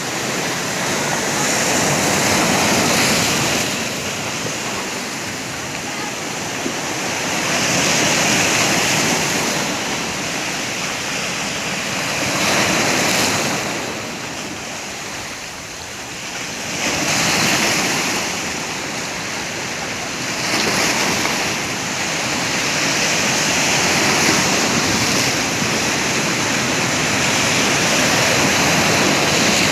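Sea waves breaking on the shore, the wash of surf swelling and fading every few seconds.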